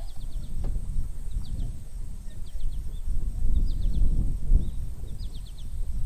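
Low, gusty rumble of wind on the microphone, with a bird calling over it in quick runs of three or four short chirps, repeated about once a second.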